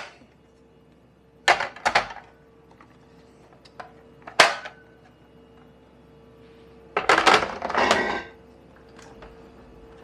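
Clicks and rattles of an espresso machine's drip tray and its stainless steel grate being handled and fitted together: a few sharp knocks in the first half, then a burst of rattling about seven seconds in as the tray goes back into the machine.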